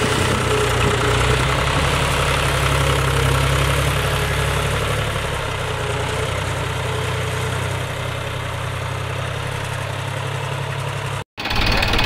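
Tractor diesel engine idling steadily, a recorded engine sound laid over toy tractor footage. It drops out for a split second near the end.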